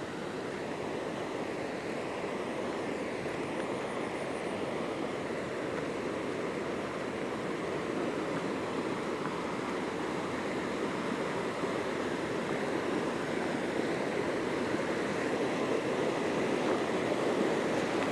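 Steady rushing of a river flowing over stones, growing gradually louder.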